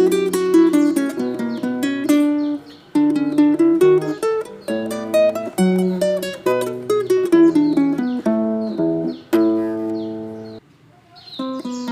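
Background music: a plucked acoustic guitar playing a melody over chords, breaking off briefly about ten and a half seconds in before going on.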